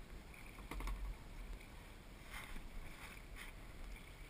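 Kayak paddle blades dipping and splashing in calm water, a few faint strokes about a second apart, over a low rumble.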